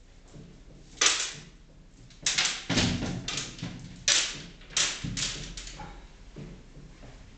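A series of about six sharp knocks and clatters from objects being handled and set down in a small tiled bathroom, irregularly spaced and most frequent in the middle.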